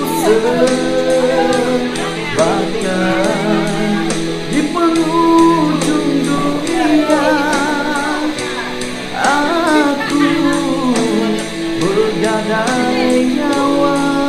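Music: a song with a singing voice over guitar and a steady beat.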